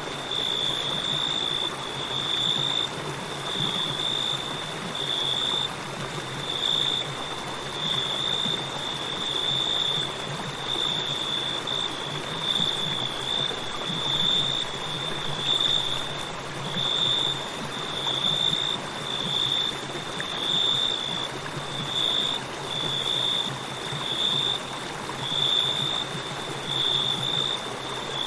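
River water flowing steadily, with crickets chirping in an even, rhythmic pulse about once a second over it.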